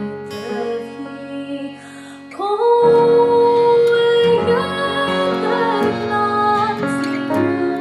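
Female voice singing a slow Scottish Gaelic song to accordion, acoustic guitar and piano. A short instrumental passage opens, and the voice comes back in about two and a half seconds in with a long held note.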